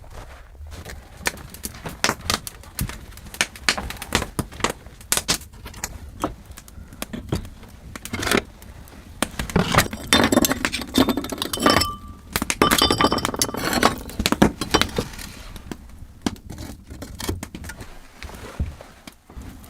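A long run of knocks and clinks from hard objects being handled. Twice around the middle the clinks ring briefly, like metal or glass.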